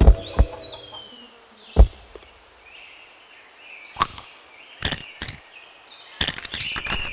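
Eggshell cracking sound effects: single sharp cracks, a few in the first two seconds, then coming faster from about four seconds in, with a rapid cluster near the end, and a faint high creaking between them.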